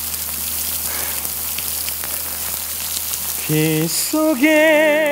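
Stage rain effect: artificial rain falling steadily onto the stage with an even hiss. About three and a half seconds in, a man's singing voice comes in over it, ending in a long held note with vibrato.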